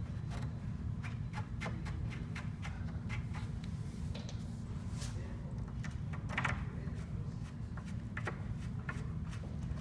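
Wooden trundle bed parts being handled during assembly: irregular knocks and clicks of rails and slats, over a steady low rumble.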